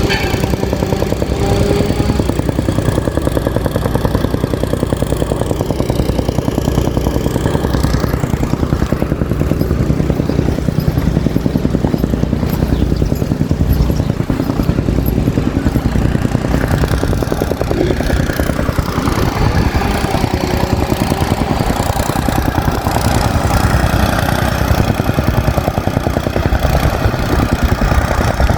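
Soil compactor running steadily, its engine and the fast, even pounding of the compacting machine on earth.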